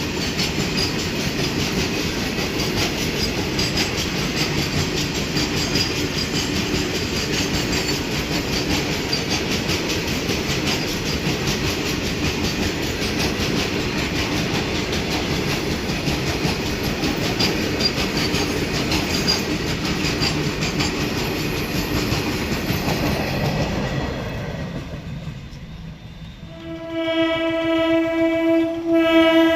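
A train running past at speed: a steady rumble with rapid wheel clatter over the rail joints that dies away about 24 seconds in. Near the end a train horn blows a loud, steady two-part blast.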